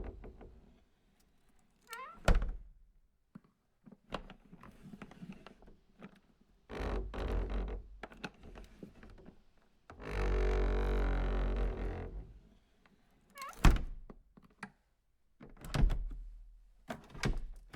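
A vibrating device rattling against a wooden surface: stretches of buzzing, the longest about two seconds, with several sharp knocks between them.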